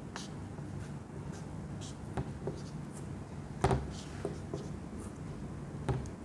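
Marker drawing on a whiteboard: scattered light taps and short squeaks of the tip against the board, with one louder tap a little past halfway.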